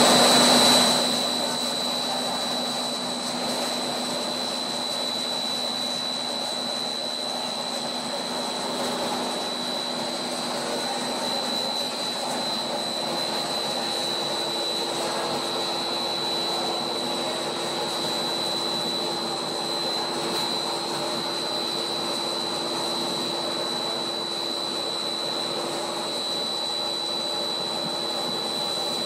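Plastic blown film extrusion line running: a steady rush of machine and air noise with a high, steady whine over it.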